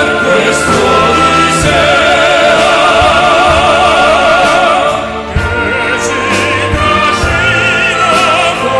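Operatic crossover song performed with orchestral accompaniment: long held notes with wide vibrato and scattered percussion hits, dipping briefly in loudness about five seconds in.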